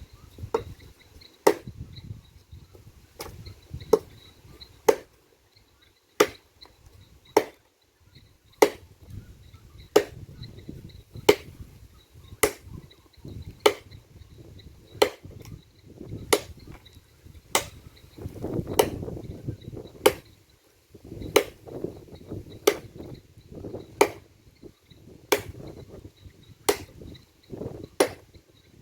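Wood being chopped by hand with a blade: sharp, evenly paced strikes about once every one and a quarter seconds.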